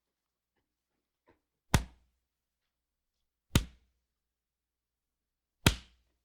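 Three punch impact sound effects, each a sharp hit with a short low thud and quick decay, spaced about two seconds apart.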